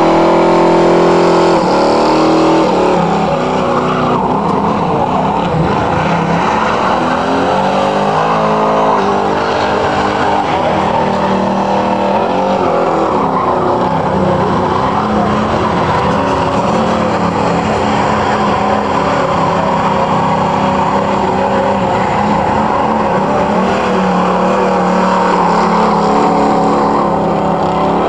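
1968 Chevrolet Camaro doing a long burnout: the engine held at high revs, its pitch wavering up and down, with the spinning tyres squealing throughout.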